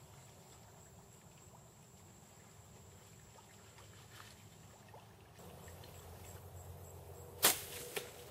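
Faint outdoor quiet, broken about seven and a half seconds in by one loud, sharp snap and a smaller click half a second later.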